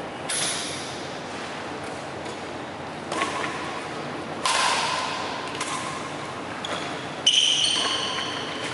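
Badminton rackets striking a shuttlecock in a rally: four sharp smacks one to three seconds apart, each ringing on in a large hall, the last near the end the loudest.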